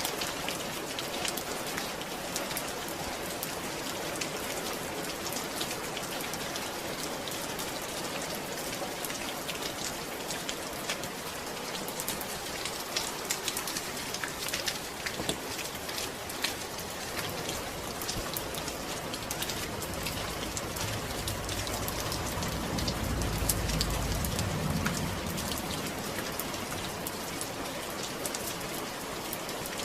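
Steady rain falling, a dense patter of drops hitting a surface. About two-thirds of the way in, a low rumble swells and fades.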